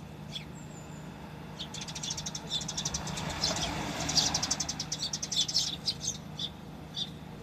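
A flock of Eurasian tree sparrows chirping: a few single chirps, then a dense run of rapid overlapping chirps from about two seconds in until about six seconds. A vehicle passes by in the middle, a rising and fading rush under the chirping.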